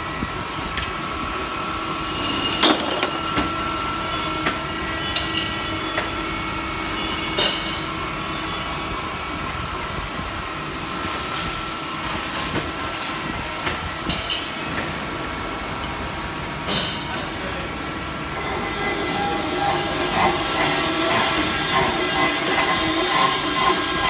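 Kydosu 400 pipe cutting machine running with a steady metallic whine and scattered clicks. About three-quarters of the way through it turns louder and harsher, with a strong hiss.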